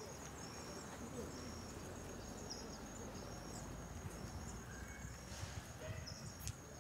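Faint insects chirping: a steady high trill with a short chirp about once a second, over a low rumble. A couple of sharp clicks near the end.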